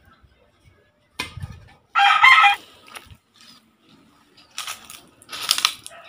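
A digging tool striking the soil once about a second in, then a short, loud chicken call about two seconds in. Near the end comes the rustling of a plastic bag.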